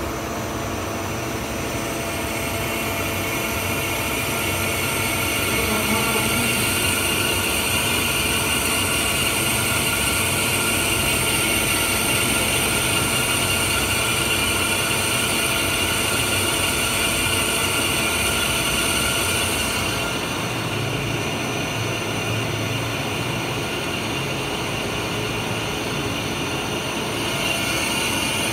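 CNC lathe drilling a deep hole: the spindle spinning the metal workpiece while a twist drill cuts into it under coolant, a steady machine hum with several steady tones and a high hiss. The hiss eases about twenty seconds in and comes back near the end.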